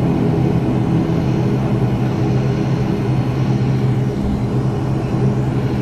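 Turboprop airliner's engines and propellers running with a steady low hum of several held tones, heard from inside the cabin as the plane taxis after landing.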